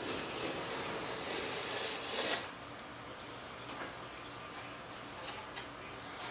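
Sanding block rubbed back and forth along the edge of a wooden stabilizer panel, a dry rasping scrape. The strokes are dense for about the first two and a half seconds, then turn lighter and quieter with a few short strokes.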